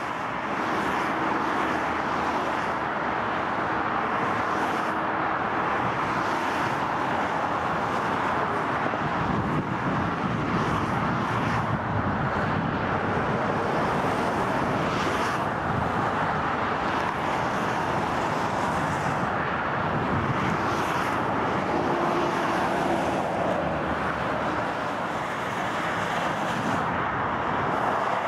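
Steady rush of motorway traffic, the tyre noise of many cars passing below blending into one continuous sound.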